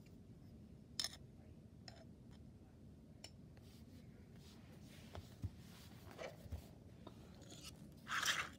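Handling noises of a metal precision gyroscope not yet spun: a few scattered small clicks and taps, then a short, louder rustle of movement near the end.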